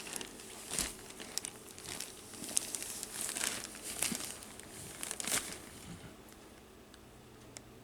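Gift wrapping paper crinkling and rustling in irregular bursts as an animal noses and paws at a wrapped, taped present, trying to tear it open; the crinkling dies down about six seconds in.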